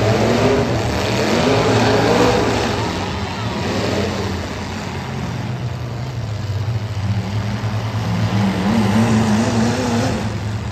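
Several demolition derby cars' engines running and revving at once, their pitch rising and falling as the drivers rev.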